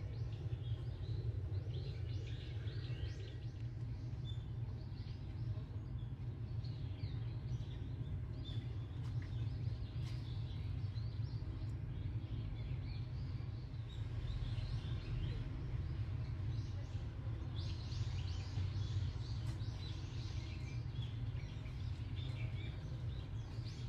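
Steady low outdoor rumble, with small birds chirping in many short calls throughout.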